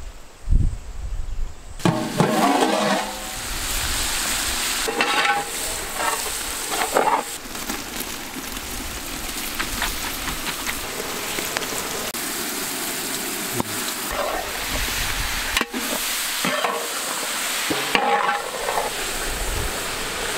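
Boiled lamb intestine pieces tipped into a large metal pot of onions, tomatoes and chillies frying in hot oil, starting a steady sizzle about two seconds in. The mixture is then stirred in the pot, with scraping and clattering over the continuing frying.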